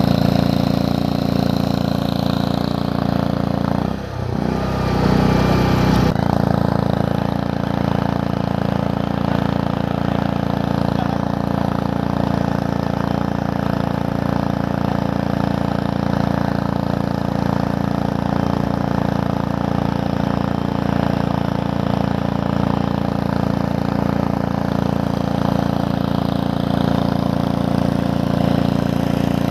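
An engine running steadily at idle-like speed, its note briefly disturbed and deepened between about four and six seconds in.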